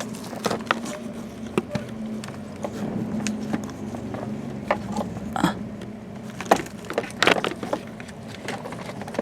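Irregular clicks, taps and knocks from handling a multimeter and its test leads, with a steady low hum underneath.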